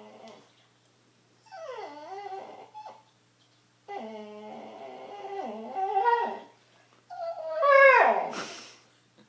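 Dog whining in a string of drawn-out, wavering calls that bend up and down in pitch. The last call, near the end, is the loudest and slides down at its close.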